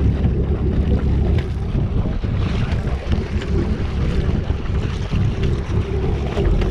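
Wind buffeting the microphone on a boat on open water, a heavy steady rumble with the wash of water and a few small knocks.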